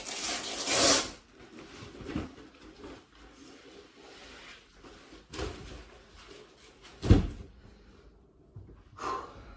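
A 10 kg weight vest being taken off: its straps are unfastened with a loud rasp in the first second, it rustles as it is pulled off over the head, and it lands with a heavy thump about seven seconds in.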